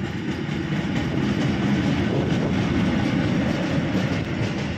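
Diesel shunting locomotive passing close by with its engine running, a heavy low rumble that swells as it comes alongside and eases near the end.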